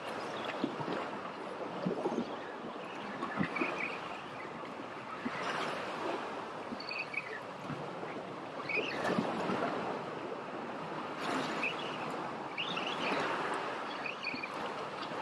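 Sea waves washing against a rocky shore, swelling and falling every two to three seconds.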